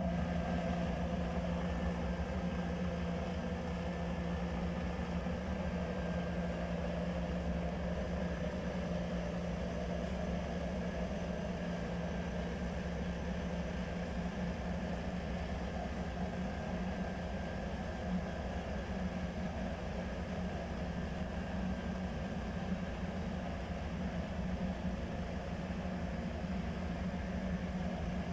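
A steady low mechanical hum, like machinery or a motor running continuously.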